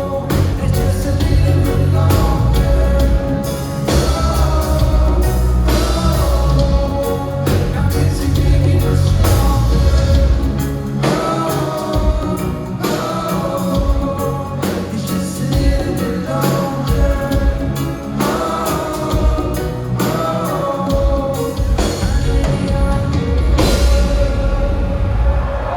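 Live band playing a reggae song, with a sung lead vocal over heavy bass and drums.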